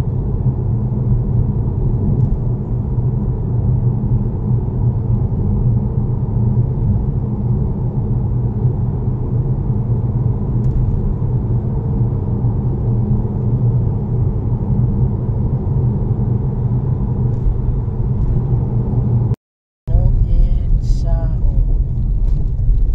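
Steady low rumble of a car's engine and tyres, heard inside the cabin while driving. Near the end it cuts out for a moment and then comes back a little louder.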